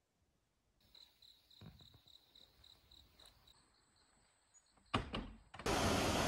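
Crickets chirping, a faint high chirp about four times a second, then a steady high trill. A few loud knocks come just before five seconds, and then the loud, even rush of a stream and small waterfall starts.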